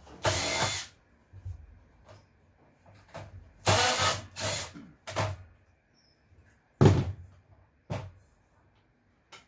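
Short bursts of clanking and scraping from tools and metal parts as electronic equipment is pulled apart, about six in all, the sharpest knock about seven seconds in.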